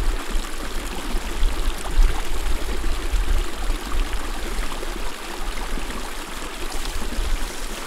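Small meadow creek running and trickling steadily.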